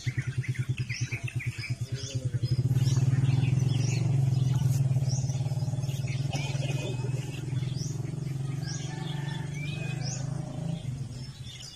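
A small engine running steadily nearby, with a quick putter for the first couple of seconds, while a bird repeats a short rising chirp a little more than once a second.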